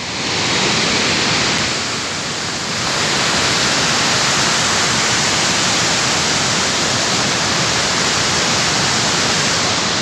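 Steady rushing of a forest stream flowing downhill, dipping a little about two seconds in, then steady again.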